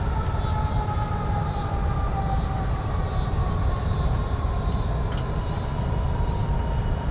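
Downtown city street ambience: a steady low rumble of traffic with a sustained two-note whine that slowly falls in pitch, and higher wavering tones coming and going, loudest about five to six seconds in.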